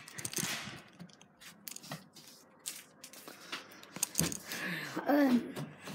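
Handling noise from a phone being moved about while it records: scattered rustles and clicks, the loudest a rustling sweep just after the start. A short bit of voice comes in near the end.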